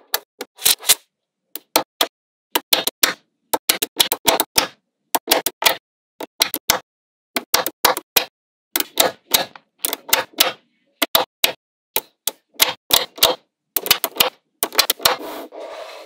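Small magnetic balls clicking and snapping together as they are set into place: irregular clusters of sharp clicks with short pauses between, and a denser run of clicking near the end.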